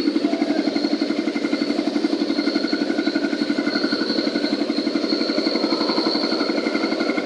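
Cement concrete mixer machine running steadily, its engine giving a fast, even pulsing beat.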